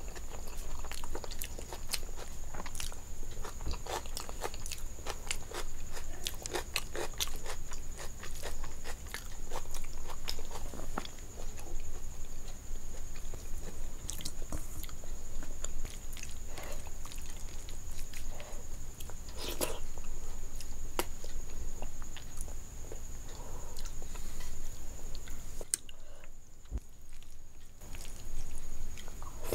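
Close-miked eating sounds of a person eating rice and curry by hand: wet chewing and mouth clicks mixed with the squelch of fingers kneading rice into curry, in a dense, irregular run that dips briefly quieter near the end. A faint steady high whine lies underneath.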